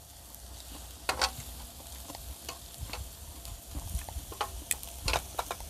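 Pieces of fish sizzling on a round tabletop grill pan, with a few sharp clicks of tongs against the pan as they are turned.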